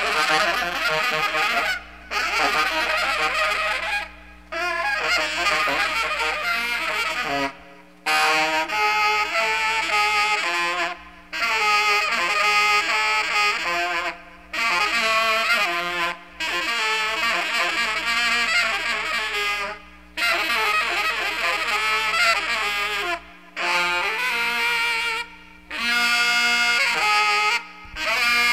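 Free-jazz saxophone playing repeated short phrases of about two to three seconds, each broken off by a brief pause, over a steady low electronic drone.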